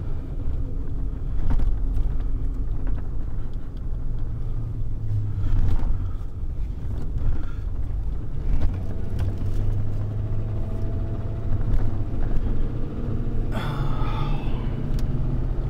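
Tow truck driving with a vehicle in tow, heard from inside the cab: a steady low engine and road rumble. A short, sharper noise comes about 13 seconds in.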